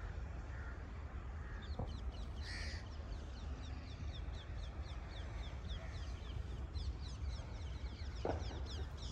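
Birds calling: one harsher call about two and a half seconds in, then a long run of quick, short, high chirps through the rest. Under them runs a steady low rumble of wind on the microphone.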